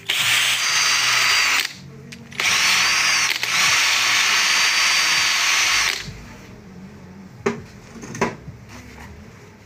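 DeWalt cordless drill spinning a non-woven abrasive (Scotch-Brite type) pad against a Honda PCX125 variator pulley face, taking off the belt's glaze and marks. It runs in two bursts, a short one and then one of about three and a half seconds after a brief pause, with a high whine. Two light clicks come near the end.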